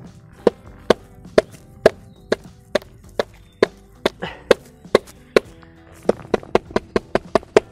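Olight M2R Pro Warrior flashlight's toothed metal bezel hammered repeatedly against a soft, dead log, about two knocks a second, then a faster run of knocks near the end. Background music plays underneath.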